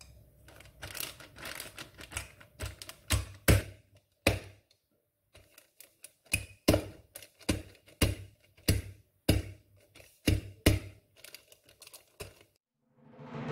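Wooden rolling pin striking green olives in a plastic zip-lock bag on a countertop to crack them: a series of sharp knocks, irregular at first, then after a brief pause a steady run of about two strikes a second.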